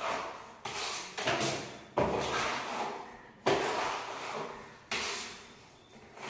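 Putty knife scraping wet wall putty across a plastered wall in about six strokes, each starting sharply and fading out: the second coat being smoothed for a fine finish.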